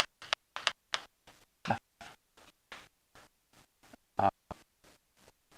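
Badly broken-up lecture speech: the voice comes through only as short clipped fragments several times a second, with dead silence between them, too garbled to follow. This is the faulty audio of the recording.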